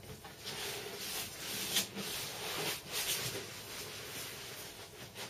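Cardboard boxes being handled: cardboard scraping and rustling against cardboard as a large box is lifted out of another, with a few sharp knocks.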